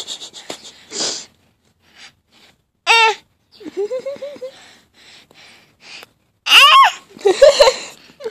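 Baby vocalizing close to the microphone: a short high squeal about three seconds in, a lower rising babble just after, and a louder falling squeal about six and a half seconds in, with breathy noises in between.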